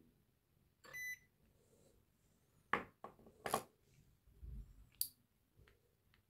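Battery spot welder joining nickel strip to lithium cells: a short electronic beep about a second in, then several sharp snaps of the weld pulses.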